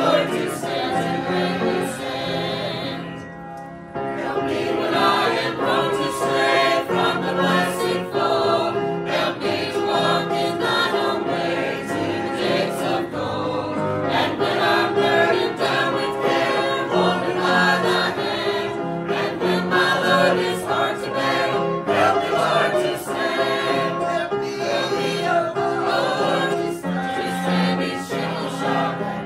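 Music: a choir singing a gospel song, with the singing easing off briefly about three seconds in.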